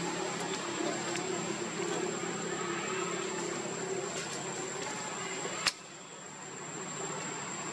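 Steady outdoor background hiss with a thin, high, steady whine, broken by one sharp click about three-quarters of the way through, after which the noise briefly dips.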